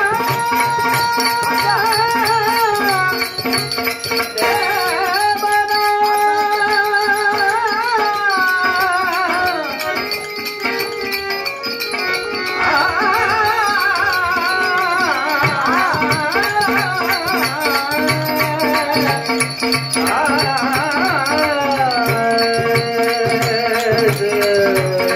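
Man singing a bhajan into a microphone in long, wavering held notes, accompanied by harmonium, tabla and small hand cymbals keeping a steady beat.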